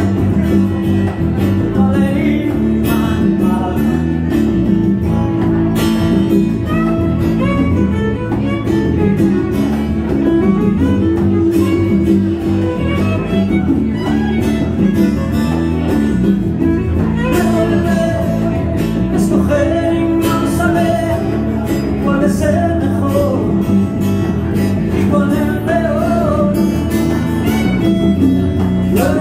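Live band playing: violin melody over acoustic guitar strumming, electric bass and congas, continuous throughout.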